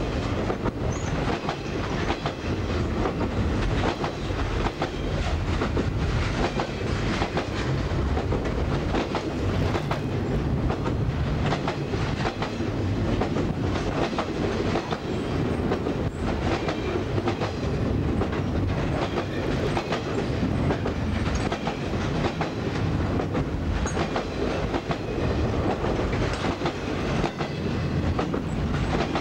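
Freight flatcars of a long CSX train rolling past: a steady rumble of wheels on rail with repeated clacking as the wheels cross rail joints.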